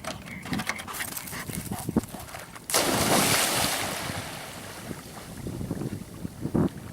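Chocolate Labrador retriever plunging into water with a loud splash a little under three seconds in, the splash noise fading away over the next couple of seconds.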